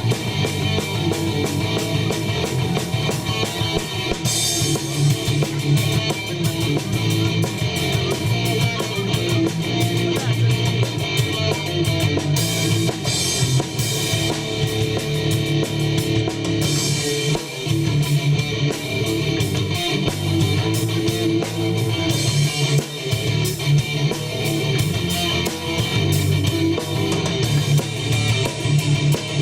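Live rock band playing: electric guitars over bass and a drum kit, with cymbal crashes now and then.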